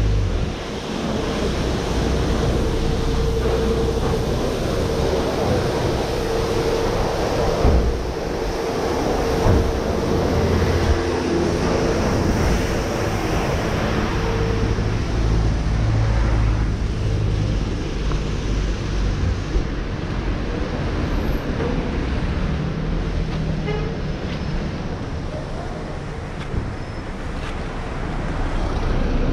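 Street noise of traffic with vehicle engines running, a steady wash of noise with a low rumble that swells and fades. A steady hum sounds for about the first fifteen seconds.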